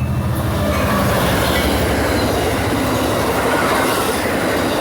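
Amtrak passenger train passing close by: the F59PHI diesel locomotive's engine drone fades within the first second, leaving the loud, steady noise of the passenger cars' wheels running on the rails.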